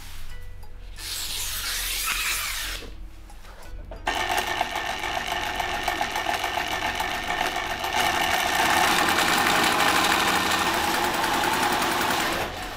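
Industrial sewing machine stitching heavy black fabric. It starts suddenly about four seconds in and runs steadily at a rapid needle rhythm, gets louder about eight seconds in, and stops shortly before the end.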